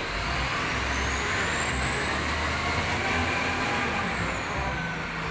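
XGMA wheel loader's diesel engine running under load as it works the bucket, a steady low rumble with a high whine that rises and then falls away.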